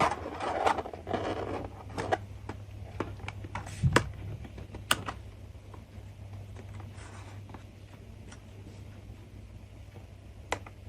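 Plastic bottom cover of a laptop being fitted back on: a brief scraping as it slides into place, then a series of sharp plastic clicks as its clips snap in one by one.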